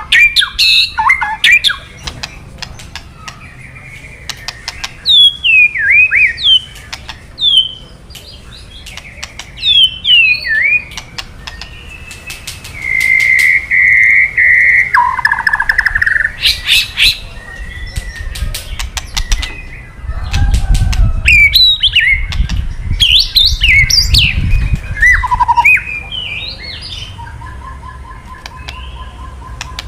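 White-rumped shama calling: quick whistled and sweeping notes broken up by runs of harsh, rapid clicking rattles, the 'kretekan' of an agitated shama. A low rumble joins in for several seconds past the middle.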